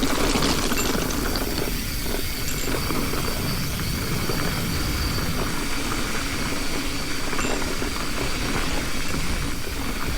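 Mountain bike riding down a loose, rocky trail: a steady rush of tyre and drivetrain noise, with the bike rattling over the rock.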